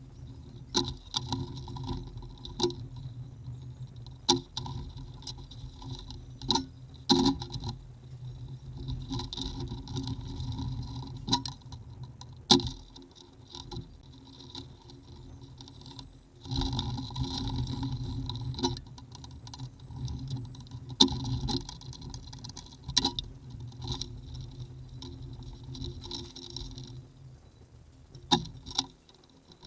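Hands working with small hard parts and tools, making irregular clicks, taps and light rattles, over a hum that comes and goes and stops near the end.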